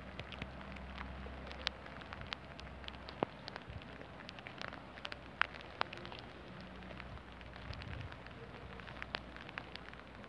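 Rain falling steadily, with scattered, irregular sharper drop impacts over an even patter.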